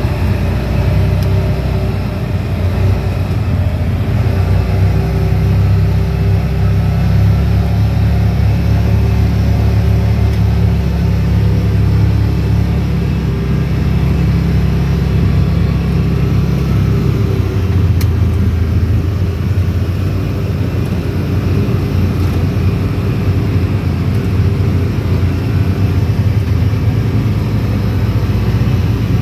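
Vehicle engine running steadily close by while driving slowly along a gravel road; its note shifts lower about seventeen seconds in.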